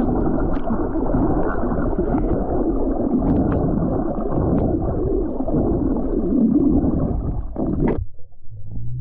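Muffled underwater rumble and water noise on a submerged camera's microphone, dense and steady, dropping away sharply about eight seconds in.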